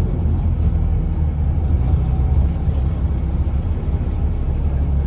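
Bus engine running with a low, steady rumble.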